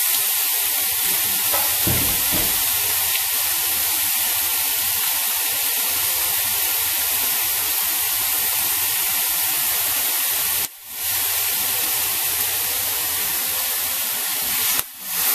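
Raw chicken pieces sizzling in hot oil with sautéed garlic and onion in a stainless steel pot: a steady frying hiss that breaks off briefly twice in the second half.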